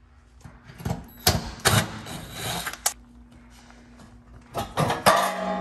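Clattering and scraping of sheet metal as the back of an electric range is handled, with a louder metallic clank near the end.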